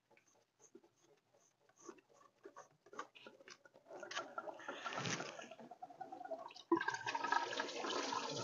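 Engine coolant running and splashing out as the thermostat housing comes off. Light clicks of tool work come first, then the pouring starts about four seconds in and turns suddenly louder near seven seconds.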